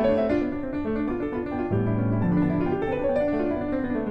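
Background piano music: a run of separate notes moving up and down, with deeper bass notes coming in a little under two seconds in.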